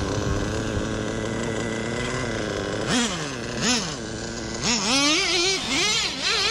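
Small nitro RC car engine running steadily at idle, then revving up and down in quick repeated swoops from about three seconds in as the car is throttled and driven.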